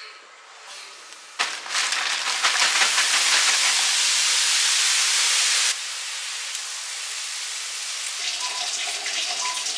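Mixed vegetables poured from a bag into a hot, oiled non-stick frying pan, sizzling loudly from about a second and a half in, like rain. About halfway the sizzle drops suddenly to a quieter steady sizzle while the vegetables are stirred.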